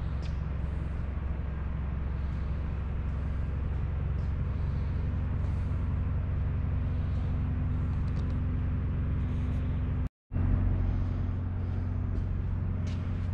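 A steady low machine hum with a constant drone and a few faint clicks. It breaks off for an instant about ten seconds in and then carries on.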